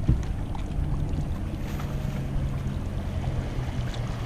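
Motorboat engine running steadily as the boat passes, a low hum over wind and water washing against rocks. A small splash right at the start as the thrown chum hits the water.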